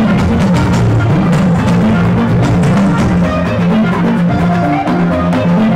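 Live Yoruba band music with no singing: hourglass talking drums and other hand percussion play a steady, busy rhythm over repeating low pitched notes.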